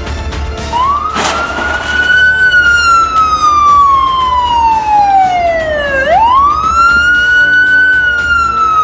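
Police car siren wailing. It rises, falls slowly for about five seconds, sweeps quickly back up and begins another slow fall.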